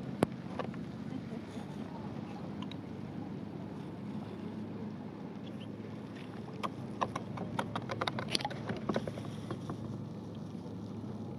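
A steady low rush, with one sharp click just after the start and a rapid run of clicks and scrapes about two-thirds of the way through, as the kayak's hull grinds over shells and rock in very shallow water.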